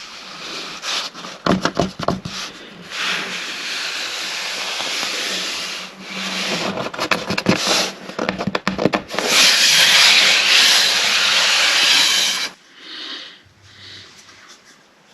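Wood being sanded: spells of steady scratchy noise lasting a few seconds, with clusters of knocks and clatter between them. The loudest spell is near the end and cuts off suddenly.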